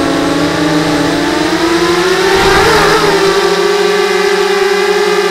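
Motors and propellers of a 250 mm Y6 mini hexacopter whining, heard from on board the craft. The pitch sags at first, wavers briefly in the middle as the throttle changes, then holds steady.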